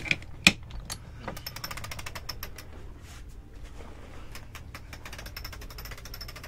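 Chrome self-tailing sailboat winch cranked with a winch handle, its pawls ratcheting in a fast, even run of clicks. Two sharp knocks come first, then the clicking starts about a second in.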